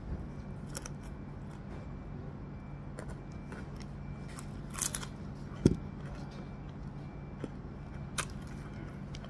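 Close-up eating sounds of a person chewing rice by hand: soft wet mouth clicks, a few crisp crunches about five seconds in, and a single dull thump just after, the loudest sound, over a steady low hum.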